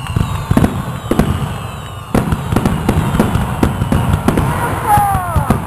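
Fireworks going off: scattered bangs, then a dense rapid crackling of many small reports from about two seconds in, with a short falling whistle near the end.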